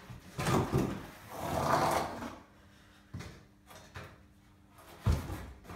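Cardboard packaging scraping and rustling as a bicycle wheel in its cardboard protector is pulled out of the bike box, then a few light knocks and a single heavy thump about five seconds in.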